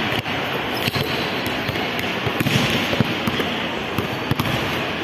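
A basketball bouncing on a tiled floor: a string of sharp, irregular impacts over steady background noise.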